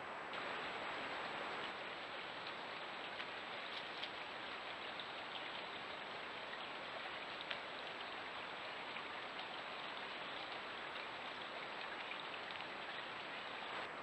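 Small woodland stream running: a steady watery hiss with scattered faint ticks, heard through a trail camera's microphone. A faint steady high whine sits above it throughout.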